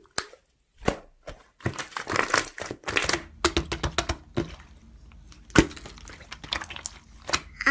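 Slime being pressed, squeezed and folded by hand, giving irregular crackling clicks and short squelchy pops.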